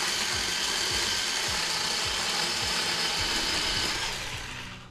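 Power saw running steadily as it cuts a tree branch, then winding down near the end with its pitch falling.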